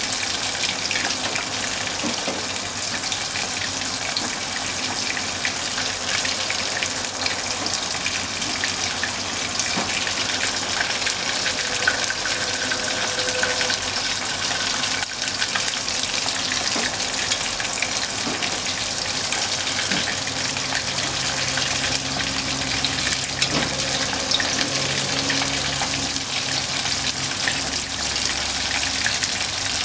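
Bone-in beef short-rib pieces deep-frying in hot oil: a steady, dense sizzle, with the pieces stirred and turned with chopsticks.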